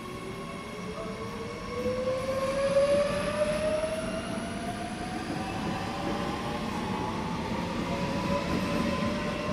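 SBB double-deck electric train pulling out and accelerating. Its traction drive gives a whine that rises steadily in pitch over the low rumble of the cars, loudest about two to three seconds in.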